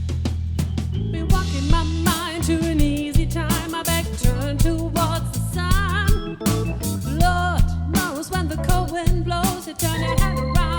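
Live band playing a funk-soul arrangement: a steady bass and a regular drum beat, with a lead melody line wavering in vibrato coming in about two seconds in.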